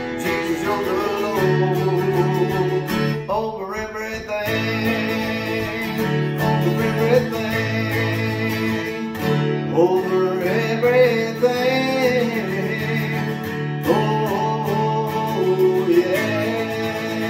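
Acoustic guitar strummed in a steady, bouncing rhythm, its bass notes alternating in a boogie-woogie pattern, with a man singing along.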